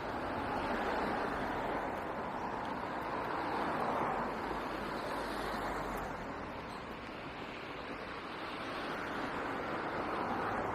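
Road traffic noise: tyres and engines of passing cars making a steady rush that swells and eases as vehicles go by.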